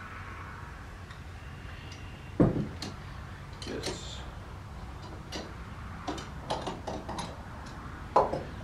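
Small metal parts clicking and clinking as bolts and pipe fittings are handled and fitted to a metal valve assembly, with two sharper metal clanks, one about two and a half seconds in and one near the end.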